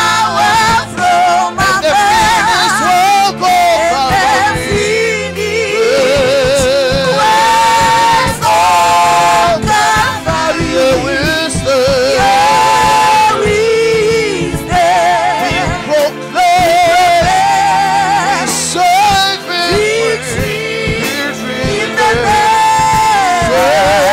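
Gospel song playing: singing voices holding long notes with a wide vibrato over steady instrumental backing.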